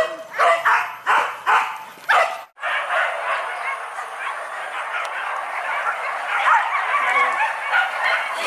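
Hunting dogs barking in quick, separate barks, then, after a sudden break about two and a half seconds in, many dogs barking together in a dense, continuous chorus.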